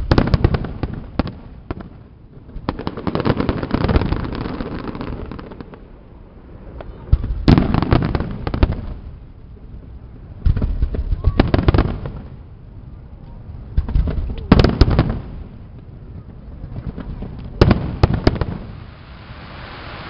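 Fireworks display: aerial shells going off in clusters of sharp bangs with crackling and a low rumble. The volleys come about every three to four seconds, with quieter gaps between them.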